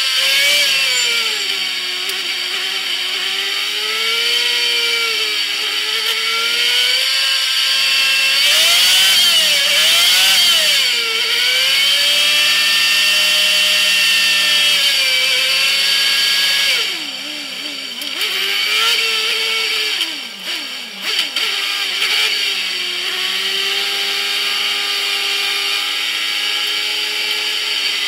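Stock car engine heard from an onboard camera, a harsh buzzing note rising and falling as the driver gets on and off the throttle. About seventeen seconds in it drops off and wavers for several seconds, then settles into a steady, lower cruise.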